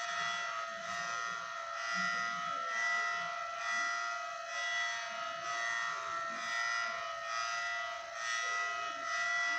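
Federal Signal Thunderbolt 1003 outdoor warning siren sounding its Hi-Lo signal. It is a steady wailing tone whose loudness swells and fades about once a second as the siren head rotates.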